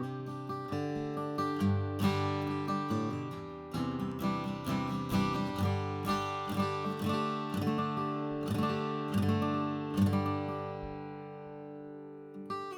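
Collings C100 acoustic guitar, Sitka spruce top with mahogany back and sides, played solo with a pick: a run of picked notes and strummed chords, the last chord left ringing and fading out near the end.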